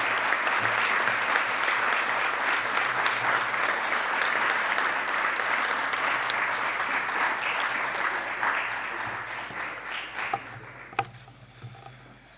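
Audience applauding, steady at first, then dying away about ten seconds in, followed by a single sharp knock.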